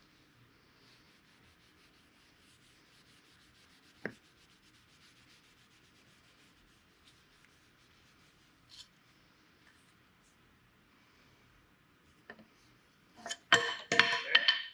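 Faint rubbing as stain is wiped on a wooden axe handle, with a single sharp click about four seconds in. Near the end comes a loud clatter of several quick knocks with a little ringing, as something is fumbled and dropped.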